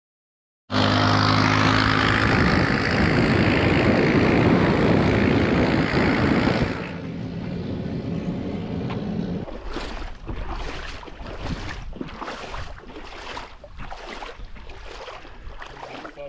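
A motor vehicle's engine running under heavy wind noise, starting abruptly and dropping to a quieter stretch after about six seconds. In that quieter part a regular stroke sound repeats about one and a half to two times a second.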